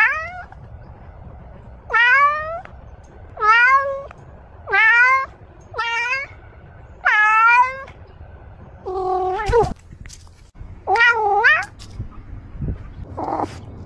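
A domestic cat meowing repeatedly, close to the microphone: about nine meows roughly a second and a half apart, most rising in pitch.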